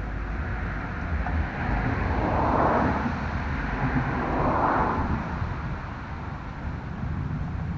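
Road vehicle passing by, its noise swelling twice in the middle, over a steady low rumble of wind on the microphone.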